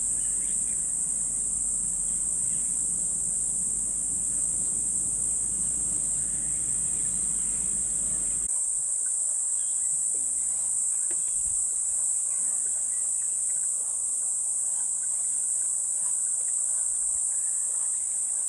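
Steady, loud, high-pitched drone of insects calling continuously. Under it, a low rumble runs for the first half and cuts off suddenly about eight and a half seconds in.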